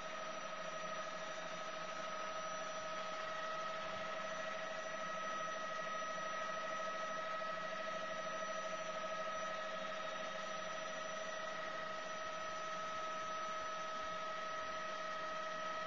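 Small helicopter in flight heard from inside the cabin: a steady whine over a constant rushing hiss, unchanging in pitch and level.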